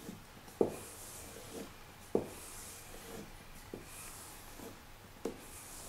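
Knife blade being pulled along a leather strop charged with honing compound, a faint rubbing hiss about every one and a half seconds, about four strokes, with light knocks between them.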